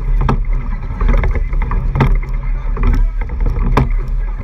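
Eight-oared racing shell under way at race pace: water rushing along the hull with wind buffeting the microphone, and sharp knocks every second or two from the oars working in their oarlocks.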